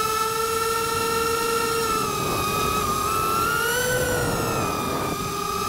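FPV quadcopter's brushless motors and propellers whining in one steady high tone with overtones, over a rushing hiss of airflow. The pitch rises and falls a little and is highest about four seconds in.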